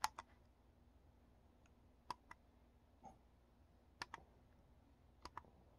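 Push buttons on a Spektrum Smart ESC programmer box clicking under a thumb. There are four presses about one to two seconds apart, each a quick double click.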